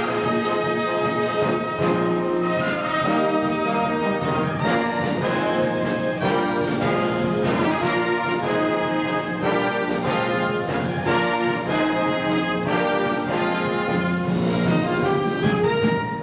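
A wind band playing live, brass (horns, trumpets, trombones, tuba) and woodwinds together in a full passage of quickly changing notes, with long held notes near the end.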